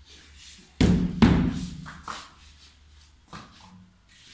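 Two heavy thuds about half a second apart as a large fibreboard spoilboard sheet is set down and shifted on a CNC router's bed, followed by a few fainter knocks.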